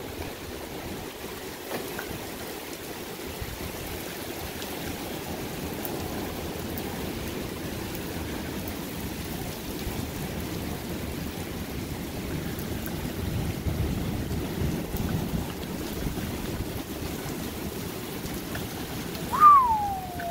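Thunderstorm wind and rain rushing steadily, gusting harder about two-thirds of the way through. Near the end comes one short, loud whistle-like tone that falls in pitch.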